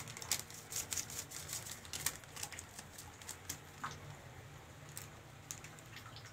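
Scattered light clicks and taps of kitchen things being handled, over a low steady hum.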